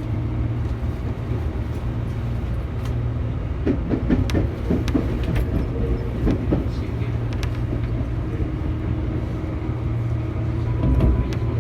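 Tobu 8000-series electric train heard from inside the car while running: a steady low rumble of motors and wheels, with a cluster of clattering knocks midway. A faint steady whine comes in near the end.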